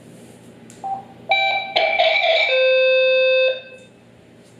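Electronic radio tones from a Sepura SC2024 TETRA handheld paired with a Bluetooth speaker-microphone during a push-to-talk test: a click and two short beeps about a second in, a brief hiss, then a steady one-second beep.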